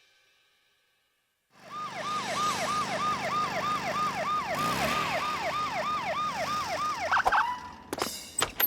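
Cartoon police siren sound effect: a fast falling wail that repeats about three times a second, starting after a second and a half of silence. It ends about seven seconds in with a short rising tone, followed by a few clicks.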